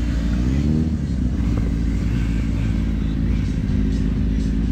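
Motorcycle engine revving: its pitch rises in the first second, then holds steady at raised revs.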